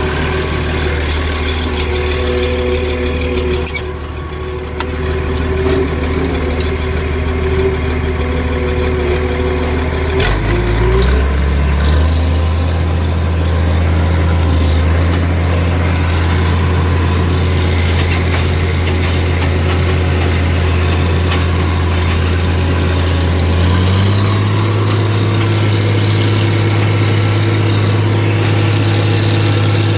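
Diesel engine of a White 2-85 tractor running steadily. Its speed steps up about a third of the way in and again near the end.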